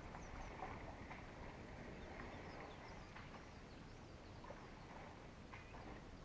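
Quiet open-air bush ambience with faint, scattered short bird chirps.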